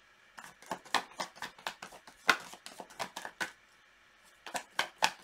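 A tarot deck being shuffled by hand: a rapid, irregular run of card clicks and flicks, pausing briefly about three and a half seconds in before the clicking starts again.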